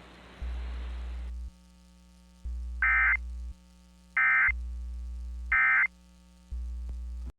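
Emergency Alert System end-of-message data code: three short bursts of warbling digital data tones around 1.5 to 2 kHz, sent about a second and a half apart, marking the end of the alert. Under them a low hum switches on and off about once a second, and radio static stops about a second and a half in.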